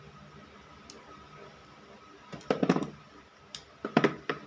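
Hand tools, a wire stripper and long-nose pliers, clicking and knocking as they are worked on a cable and set down on a plywood bench, in two short clusters of clicks about two and a half and four seconds in.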